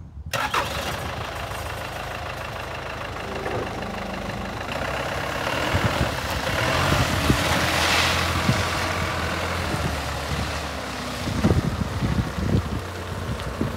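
Toyota 5FD30 diesel forklift engine catching about half a second in, then running steadily. It grows louder as the forklift drives off, and a few knocks come near the end.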